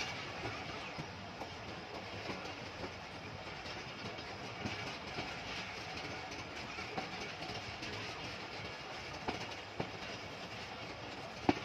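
Passenger train coach running along the track, heard from inside: a steady rumble and rush of wheel and rail noise with scattered clicks, and one sharper knock near the end.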